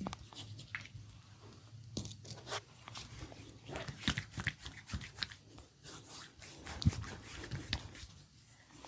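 Massage hands working on skin: a busy, irregular run of small crackles, rubs and snaps, with one louder crack about seven seconds in. A low steady hum runs underneath.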